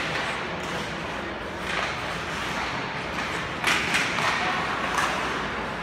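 Ice hockey play: skate blades scraping the ice in several short bursts, with a few sharp stick or puck knocks.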